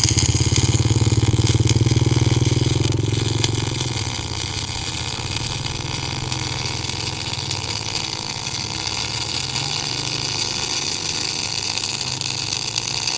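MIG welding arc from a Sanjoe NBC 500 MIG welder laying a continuous bead on 8 mm steel plate: a steady crackling buzz with a strong low hum. It strikes suddenly at the start and runs a little louder for the first three or four seconds.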